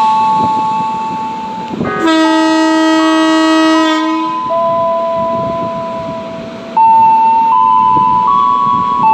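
Electric horn of a Tokyu 8500-series electric train playing a slow tune of long held notes that step between pitches. About two seconds in, a harsher horn blast with many overtones sounds for about two seconds.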